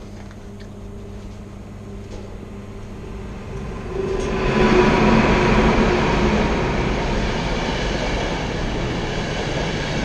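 A train moving along the station tracks: a rumble with a steady hum that builds, swells sharply about four seconds in and stays loud.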